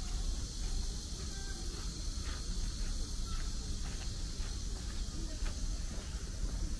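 Chorus of cicadas droning as one steady, high, even buzz, over a constant low rumble, with a few faint short chirps.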